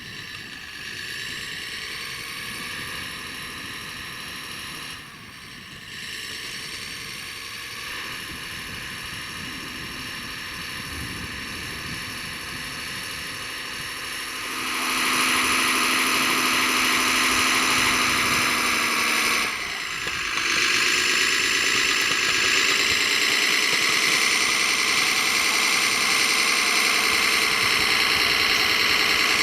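Radio-controlled model construction machine running: a steady, multi-tone mechanical whine of its motors and drive, clearly louder about halfway through, with two brief dips.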